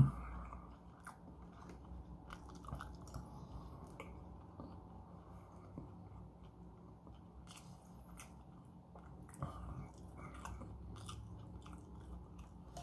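A person chewing food close to the microphone: faint, soft mouth sounds with many small clicks.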